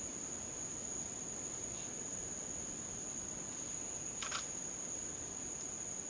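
Steady, high-pitched drone of rainforest insects, two continuous tones at different pitches; the higher one stops about four and a half seconds in. A short sharp sound is heard just after four seconds in.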